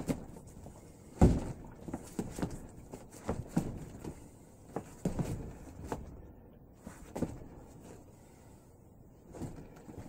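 Irregular knocks and thuds of arms and hands striking and contacting the arms of a self-made, duct-taped Wing Chun dummy during slow practice. The loudest knock comes about a second in.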